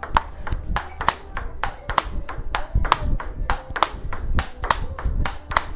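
Table tennis ball in a continuous rally of forehand loops: sharp clicks of the ball off the rubber bats and bouncing on the table, about three to four a second.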